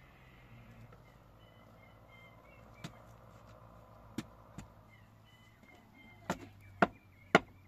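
Chopping: a few scattered sharp knocks, then steady chopping strokes about two a second starting near the end. Faint bird chirps run underneath.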